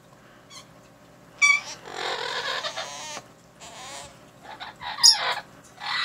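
Pet parrots calling: a short chirp, then a longer wavering call, then sharp, shrill squawks near the end.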